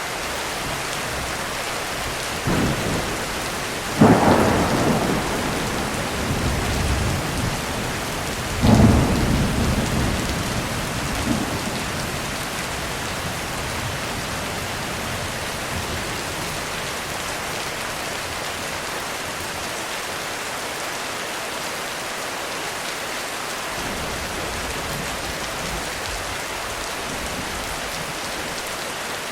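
Heavy rain falling steadily on a roof, with thunder cracking suddenly three times in the first nine seconds and rumbling away for a few seconds after each, then only the rain.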